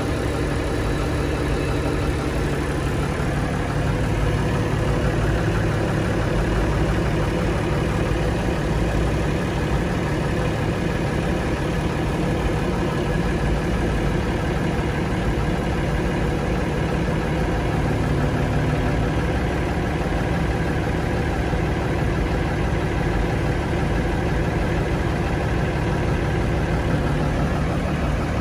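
Mercedes-Benz 911 truck's diesel engine idling steadily after an overhaul, heard from inside the cab.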